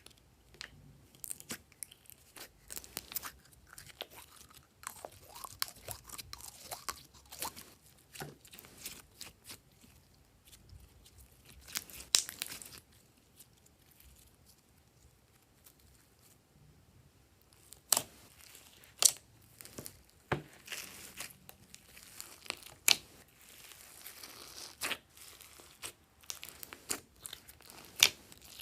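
Slime being squeezed and poked by hand, giving irregular crunchy crackles and clicks with a few louder snaps, and a pause of a few seconds midway.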